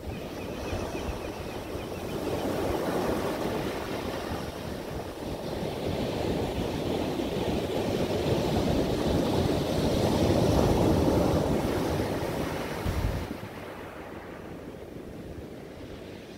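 Sea waves breaking and surging up a shingle beach of rounded pebbles, the surf swelling louder through the middle and dropping away suddenly near the end.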